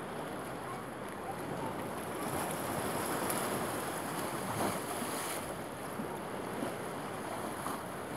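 Steady rush of wind and lake waves washing against a pier, with wind buffeting the microphone.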